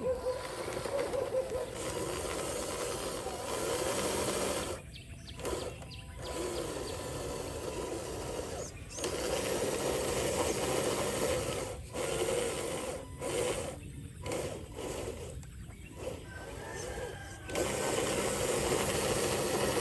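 Radio-controlled truck's small electric motor and gearbox whirring as it drives over grass, cutting out briefly several times in the middle stretch as the throttle comes off and back on.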